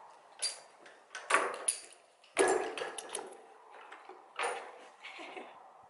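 A handful of short knocks and scuffs with quiet between them, the loudest cluster about two and a half seconds in: movement on a concrete barn floor.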